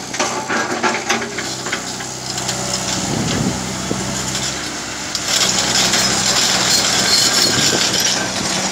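JCB tracked excavator's diesel engine running steadily while its bucket scrapes and digs through broken rock, with stones clattering. The machine noise grows louder about five seconds in.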